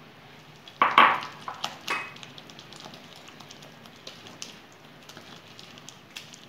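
A hand squeezing and mixing a wet coconut, sugar and egg filling in a glass bowl: soft squelching with small clicks and taps against the glass. The loudest squelch comes about a second in.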